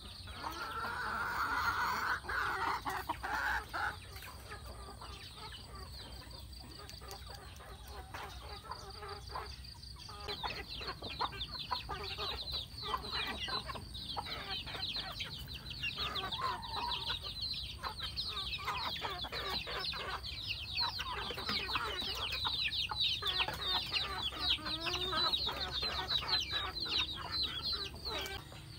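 Chickens clucking and calling in a yard, with a loud drawn-out call in the first few seconds and a dense run of rapid high chirps from about ten seconds in.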